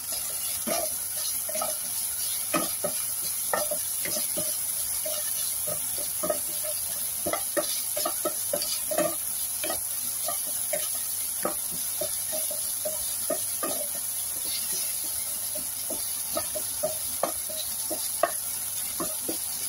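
Wooden spatula stirring and scraping sliced meat and onion in a nonstick frying pan, with frequent irregular clacks against the pan over a steady sizzle.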